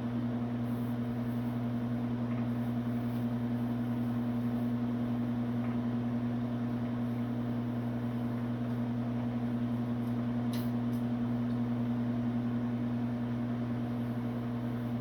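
Microwave oven running with a steady, even hum, with a faint click about ten and a half seconds in.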